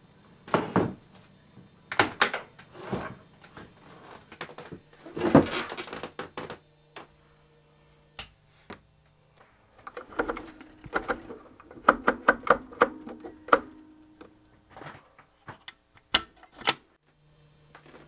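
Irregular knocks, thuds and clicks in a small room, with a quick run of clicks and clatter about ten seconds in, over a faint steady hum.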